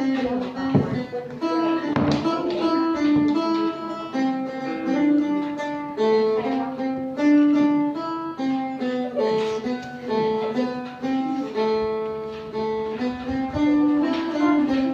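A phin, the Isan plucked lute, playing a melody of plucked notes over a lower held note.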